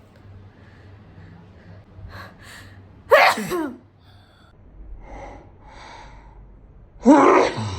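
A woman sneezes twice, each a loud burst that falls in pitch, after a short gasping breath in. The sneezes are set off by tickling the inside of her nose with a matchstick.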